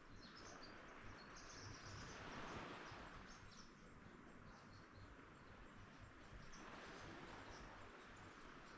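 Faint distant ocean surf, a soft hiss that swells and fades twice, with a few short, high bird chirps over it.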